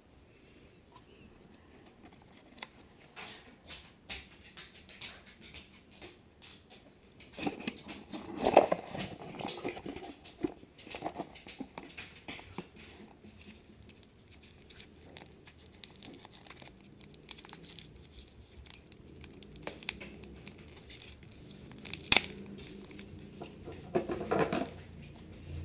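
Cardboard shipping box and its packing being handled by hand: scattered scratches, taps and rustling, with a louder cluster about eight seconds in and a few sharp clicks near the end.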